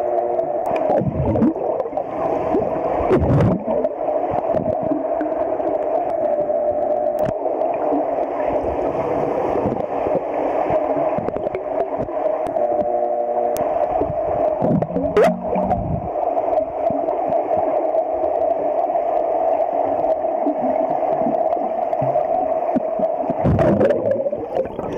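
Muffled underwater sound in a swimming pool: a steady hum with bubbling and the gurgling churn of swimmers' kicks and strokes. Swimmers passing close to the microphone make heavier surges about three seconds in, around fifteen seconds and near the end.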